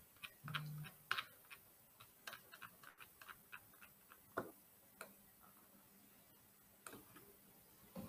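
Faint, irregular small clicks and taps, a quick run of them over the first few seconds, then a few scattered ones.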